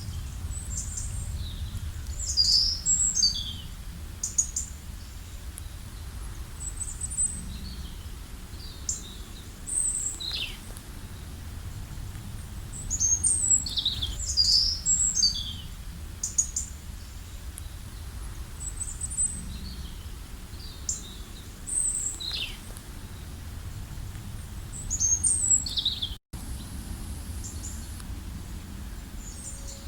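Small birds chirping and singing in short, high-pitched phrases that come in clusters, over a steady low rumble. The sound cuts out for an instant a few seconds before the end.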